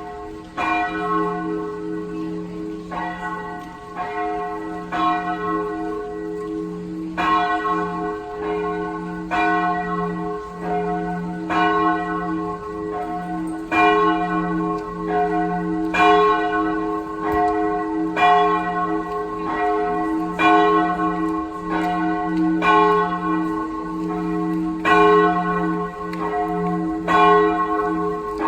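Church bells ringing together in a peal, several bells striking in an overlapping pattern roughly once a second over a steady low hum.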